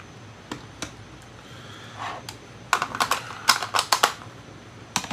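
Hard plastic clicks and clacks from handling small plastic toy pieces: two single clicks, then a quick flurry of about ten clicks past the middle, and one more near the end.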